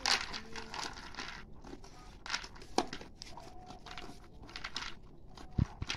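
Cats and a dog eating dry kibble from plates, with irregular crunching and crackling as they chew. A couple of dull knocks near the end.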